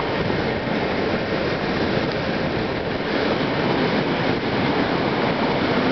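Steady rushing noise of a motorcycle riding at road speed: wind over the microphone mixed with engine and tyre noise.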